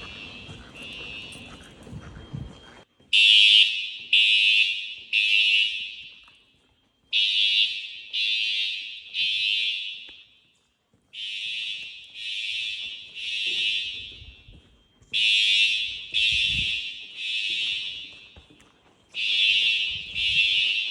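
Fire alarm horn sounding the temporal-three evacuation pattern: three blasts about a second apart, a pause, then three more, over and over. It is faint at first and loud from about three seconds in.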